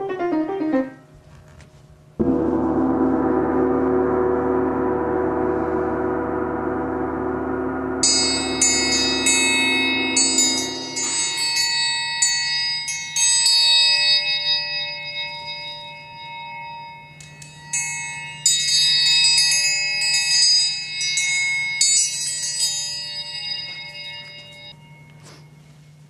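Metal triangle struck rapidly over and over in a solo, bright ringing notes in two long rolls with a short pause between, dying away near the end. It is preceded by a steady low drone with many overtones that fades out as the triangle comes in.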